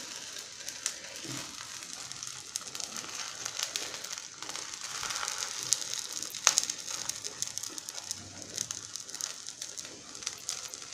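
Crepe batter sizzling and crackling in a little oil in a nonstick pan, with fine ticks throughout and one sharper click about six and a half seconds in.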